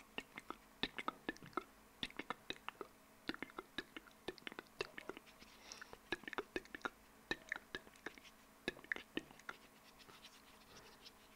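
Close-miked wet mouth sounds: rapid, irregular tongue clicks and lip smacks right at the microphone, several a second, with a brief soft breathy hiss around the middle.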